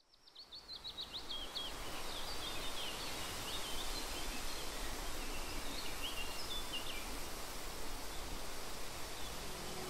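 Woodland ambience fading in: a steady background hiss with small birds chirping, a quick run of chirps in the first couple of seconds and scattered calls after. Soft music comes in right at the end.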